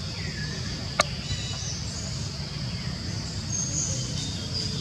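Outdoor ambience: a steady high insect drone with a few short bird chirps and whistles over a low rumble, and a single sharp click about a second in.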